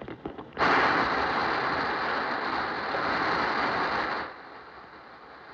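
Loud, even rushing noise that starts suddenly about half a second in and cuts off abruptly some three and a half seconds later, preceded by a few faint clicks.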